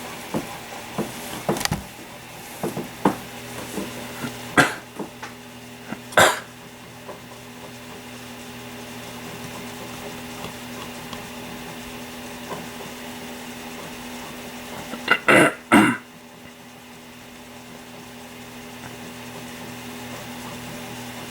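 Steady hum of a running desktop computer, with scattered small clicks early on. A person coughs sharply a few times, twice in quick succession about two-thirds of the way through.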